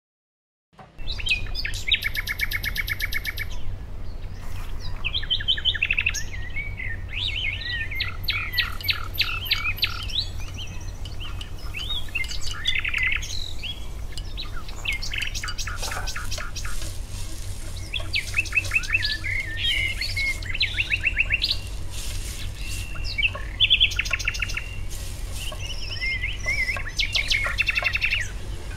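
Birds chirping and singing, with many short calls and rapid trills, starting about a second in, over a steady low hum.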